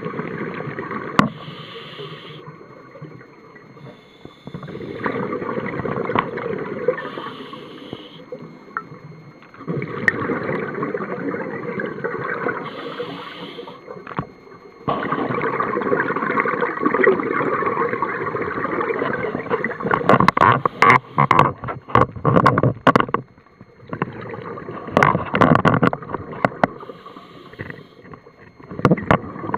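Scuba diver breathing through a regulator underwater: long rushing breaths every few seconds, alternating with bubbly exhalations, and a burst of crackling exhaust bubbles about two-thirds of the way through.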